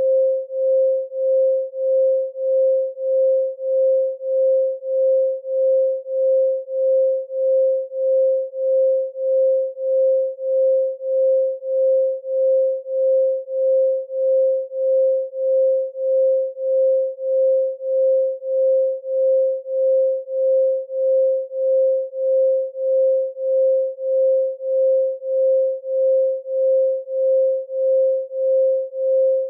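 Electronically generated 528 Hz pure sine tone, a single steady pitch that swells and fades in loudness about three times every two seconds.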